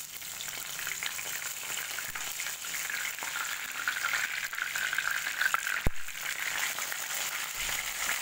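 Fish slices shallow-frying in hot oil in a non-stick pan, a steady sizzle, as a slotted spatula works under them to turn them. A sharp knock a little before six seconds in is the loudest moment.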